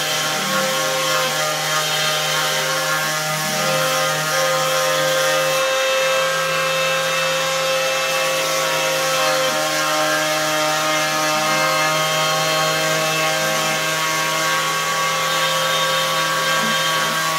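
Cordless DeWalt random orbit sander running steadily, its motor giving a constant hum and whine as the pad rubs across stained wood, sanding the stain off the faces of raised carved lettering.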